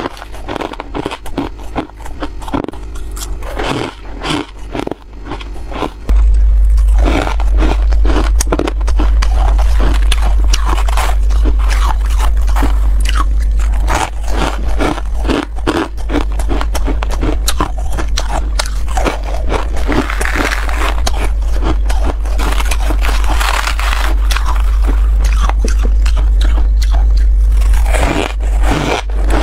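Freezer frost being bitten and chewed close to the microphone: a dense, continuous run of crisp crunches. A steady low hum comes in suddenly about six seconds in.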